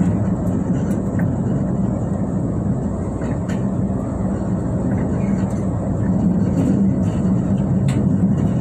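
Moving diesel passenger train heard from inside the car: a steady low engine drone with the wheels running on the rails, and a few faint clicks.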